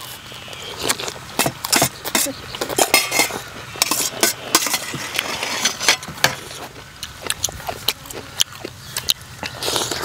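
Metal spoon and fork clinking and scraping on a steel plate, with noodles being slurped and chewed in many short, irregular clicks and smacks.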